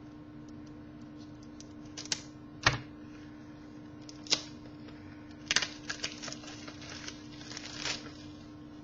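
Trading-card box and packaging being handled and opened by hand: scattered clicks and taps of cardboard and wrapping, over a steady low hum.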